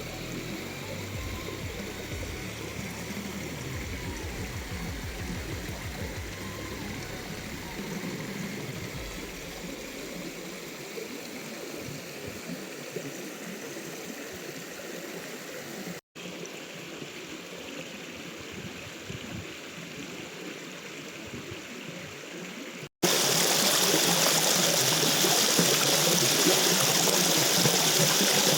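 River water flowing: a steady rushing and trickling noise that continues across cuts between shots. It becomes much louder and brighter after the last cut, about two-thirds of the way in.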